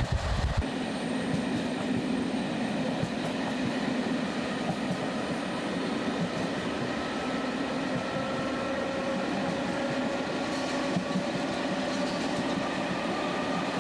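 Passenger train running along the track, heard from on board: a steady running noise with faint held whining tones, one of which rises slightly in pitch in the second half. A loud low rumble drops away within the first second.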